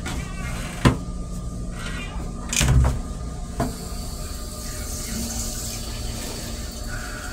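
Steady rumble of a moving Metro-North M3 railcar, heard from inside its restroom. A hinged plastic toilet seat is handled over the stainless steel bowl: one sharp click about a second in, a heavier knock near three seconds, and another small click just after.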